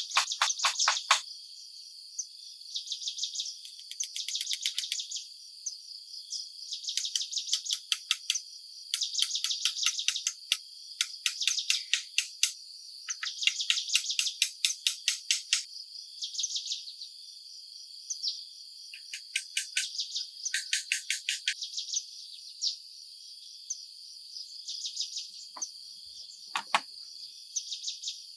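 A chorus of crickets and other insects keeps up a steady high buzzing. Over it come repeated bouts of rapid pulsed chirping, each about a second long, with a couple of faint knocks near the end.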